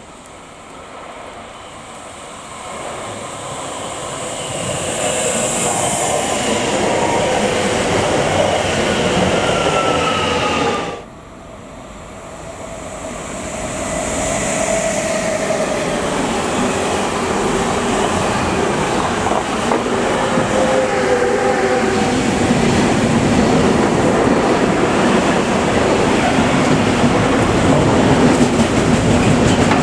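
A train approaching and passing, its wheels and rail noise growing louder, with faint falling tones. The sound cuts off suddenly about a third of the way in, then builds again to a loud, steady rumble of a train running by on the track.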